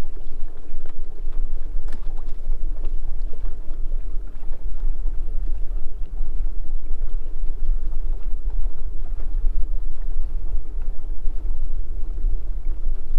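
Bass boat motor running steadily at slow speed, a constant low rumble with water and wind noise.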